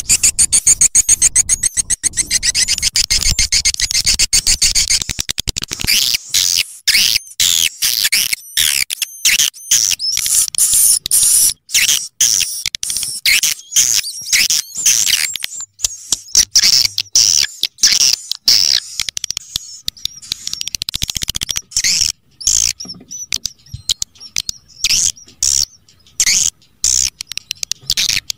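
Swiftlet calling-sound track (suara panggil walet): high, rapid twittering chirps of swiftlets, made to be played through tweeters to lure swiftlets into a nesting house. It opens with a fast, buzzy trill for about five seconds, then breaks into separate quick chirps and twitters with short gaps.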